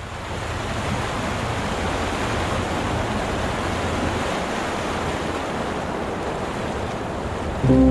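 Wind-driven lake waves washing against the shore, with wind, making a steady rushing noise that fades in at the start. Music begins just before the end.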